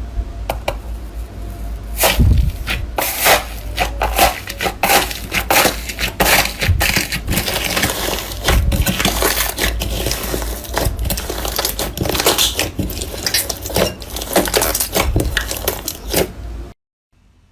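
Slime being squeezed and pressed by hand, with a dense run of crunchy crackles, pops and squishes that stops suddenly near the end.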